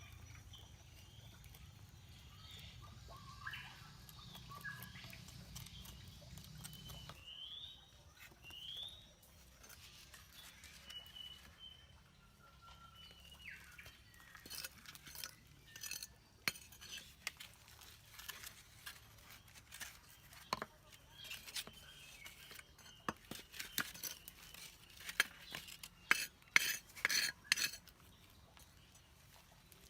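Birds chirping, with short rising calls, for the first several seconds. Then a run of sharp, irregular clinking taps of hard objects knocking together, thickest and loudest near the end.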